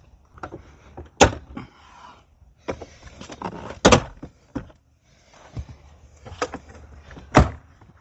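Plastic retaining clips of a car's rear door trim panel popping loose as a plastic molding tool pries the panel off the door. Three sharp, loud pops, a little over a second in, about four seconds in and near the end, with fainter clicks and scraping of the tool in between.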